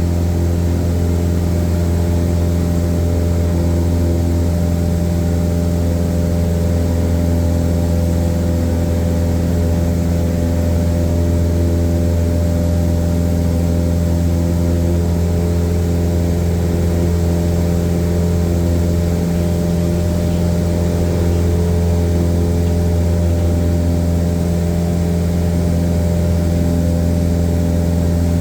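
Airplane engine and propeller droning steadily in cruise, heard from inside the cabin, with an unchanging low hum and no change in power.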